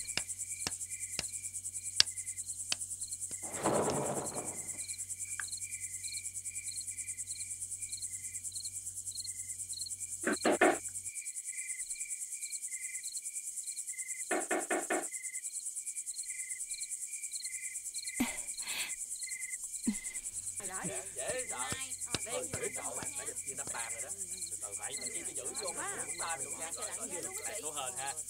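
Night insects, like crickets, chirping steadily: a high hiss with a pulsing chirp repeating a few times a second. A few brief, louder sounds break in, the loudest about ten seconds in.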